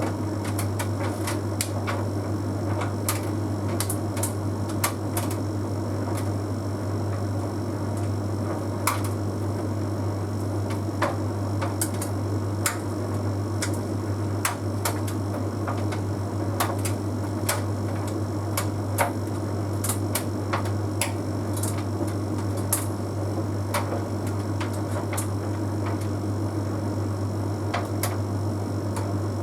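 Bosch Series 6 heat pump tumble dryer running mid-cycle: a steady low hum with many irregular light clicks and ticks as the load tumbles in the drum.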